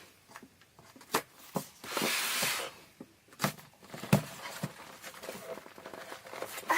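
Cardboard parcel box being torn open: a short noisy rip of packing tape or cardboard about two seconds in, among scattered knocks and rustles of handling the box.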